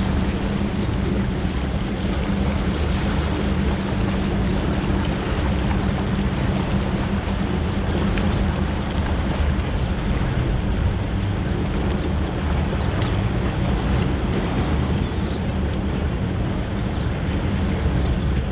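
Boat engine running steadily, a continuous low hum, with wind buffeting the microphone.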